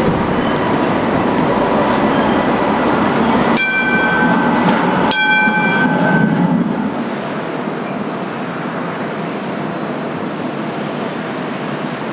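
Modern ABB light rail tram passing close by on street track, running with a high steady whine and two sharp clicks a second and a half apart. After about seven seconds the sound drops to a quieter, steady rumble.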